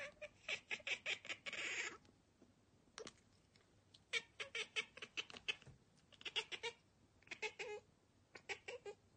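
A domestic cat chattering at something outside the window: quick runs of short clicking chirps, in about five bursts separated by pauses.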